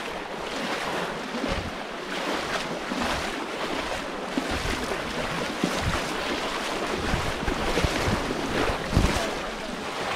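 Muddy pond water sloshing and splashing as several people wade through it and plunge bamboo polo fish traps and nets into it, with wind on the microphone and a few low thuds.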